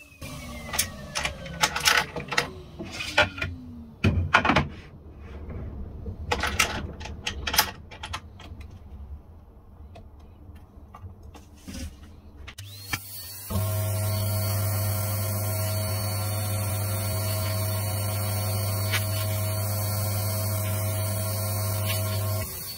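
Sharp knocks and clatter of a workpiece and clamp being handled on a pillar drill table, after a motor's falling whine as it winds down at the start. About 13 s in a workshop motor starts with a quick rising whine, runs steadily with a strong hum for about nine seconds, then stops.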